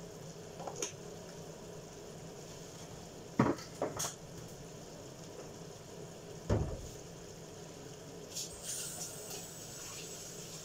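Chicken adobo cooking in a frying pan on a gas burner with a faint, steady sizzle. A few sharp kitchen knocks and clatters come about three and a half to four seconds in, then a louder dull thump about six and a half seconds in.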